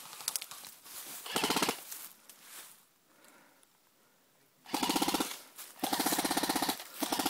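Airsoft electric rifle firing rapid full-auto bursts: a short burst, then after a pause three longer bursts in quick succession.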